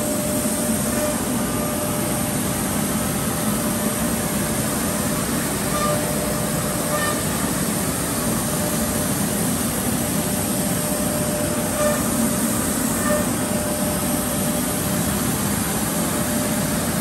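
Machinery running steadily: an even low rumble and hiss with a faint hum through it, and a few brief faint high tones scattered here and there.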